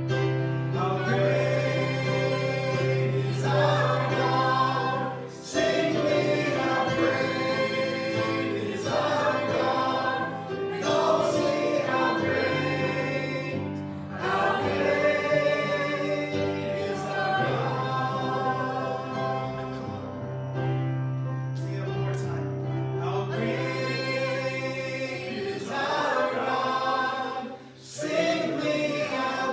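Christian worship music: voices singing together over instrumental accompaniment, in sustained phrases over a steady low bass note.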